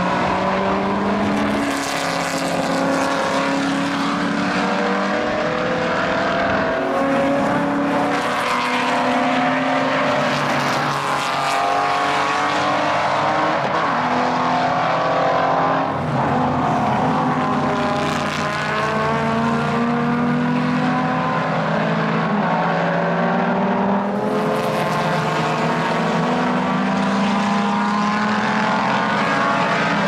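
Historic racing car engines at full throttle accelerating up the track, several cars one after another, their revs climbing and dropping back again and again as they change gear.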